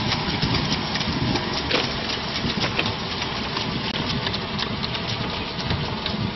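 Rice transplanter machine running in a paddy: a steady engine-like noise with a dense crackle of small clicks.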